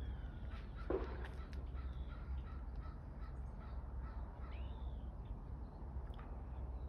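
Birds calling in the open: one short, harsh call about a second in, and a brief high chirp later, over a steady low background hum.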